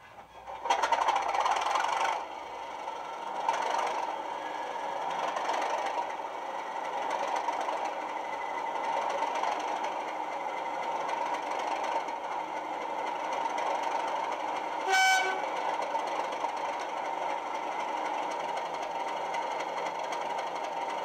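Sound decoder in a Bachmann Class 37 model playing a recorded Class 37 English Electric diesel engine through its small speakers. The engine sound comes in loud for about two seconds, then settles into a steady idle while the locomotive stands still. A short horn blast sounds about three-quarters of the way through.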